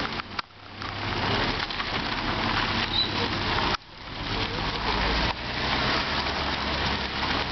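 Ford Escort cars rolling slowly past at low revs, engine hum under a steady crackling noise. The sound drops out abruptly twice, about half a second in and near the middle.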